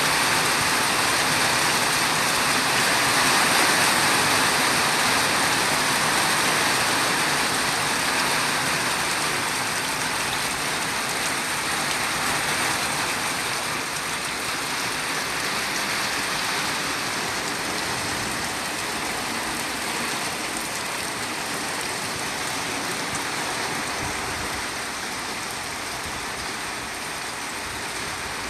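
Heavy tropical rain pouring down in a dense, steady hiss, growing gradually a little quieter through the stretch.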